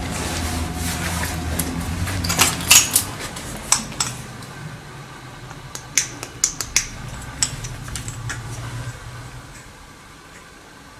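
Footsteps and shuffling on a debris-strewn floor, with scattered sharp clicks and clinks over a low rumble that fades away after about nine seconds.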